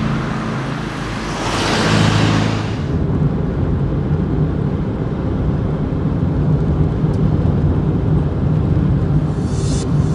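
A car driving past, loudest about two seconds in, followed by a steady low rumble.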